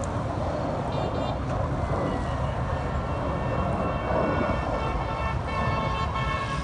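Steady rumble of an F-16 fighter jet's engine passing at a distance. Several steady high tones sound over it from about a second in, growing stronger near the end.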